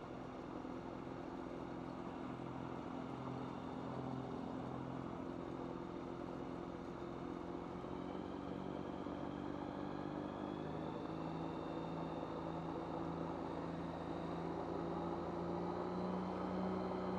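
Rotax 912UL four-cylinder boxer engine of an ultralight running steadily in flight. About two-thirds of the way through its note shifts and slowly rises, and it grows slightly louder.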